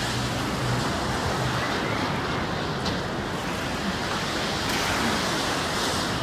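A steady, even rushing noise, like wind or surf outdoors, with no distinct events.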